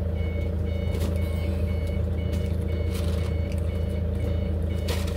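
Repeating electronic beeps, about two a second, over a steady low mechanical hum, with a few short clicks.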